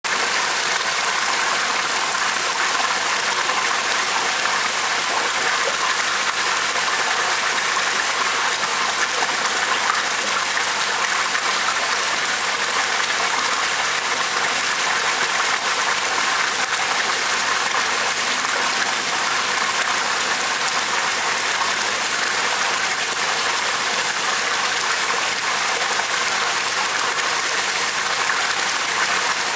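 Steady rushing of running water into a koi pond, even and unbroken throughout.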